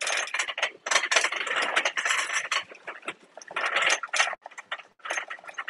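A shopping cart and the boxed merchandise in it rattling and rustling as it is pushed and handled: dense clattery noise full of small clicks, with a short lull about three seconds in.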